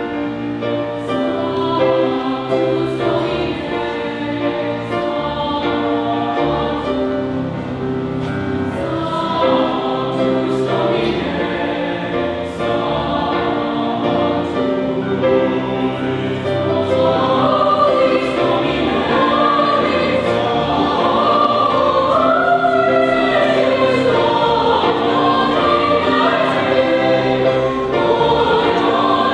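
Mixed youth choir of girls' and boys' voices singing in parts, on long held chords. About halfway through it grows louder as a higher melody line comes to the fore.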